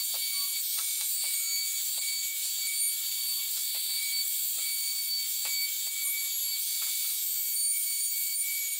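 Compact trim router running at speed with a steady high-pitched whine, its bit cutting along the edge of a bent wooden piece, with short rasping cuts about twice a second as the bit bites into the wood.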